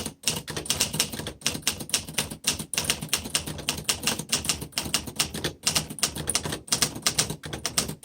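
1951 Remington Quiet Riter manual typewriter being typed on at a steady pace, a fast uneven run of key strikes, several a second, broken by a few short pauses.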